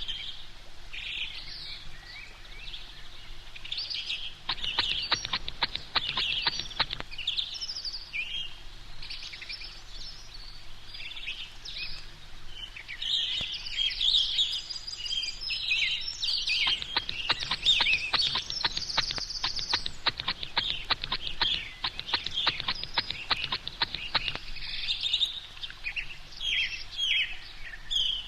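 A baby sucking on a pacifier, making high, squeaky bird-like chirps and squeals, with two long runs of rapid clicking sucks.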